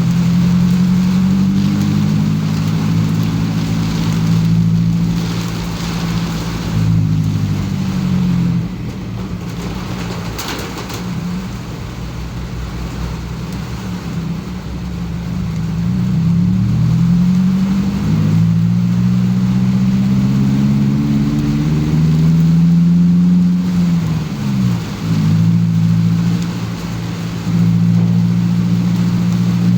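Car engine running while driving, its pitch climbing and dropping several times as it speeds up and eases off, with sharp drops about a quarter of the way in and again near the end. A steady hiss of rain and wet road lies under it.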